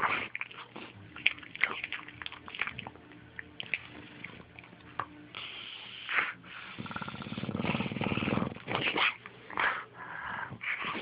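English bulldog snoring and making short, irregular breathing noises, with one long snore lasting over a second about seven seconds in.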